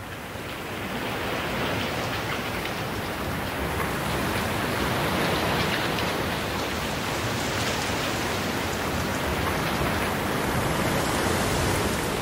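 Steady rain falling, fading in over the first second or two and then holding even.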